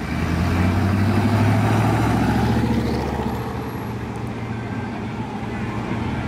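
Classic American cars' engines running at low speed as they roll in through the gate, a low engine note that is loudest for the first three seconds and then eases off a little.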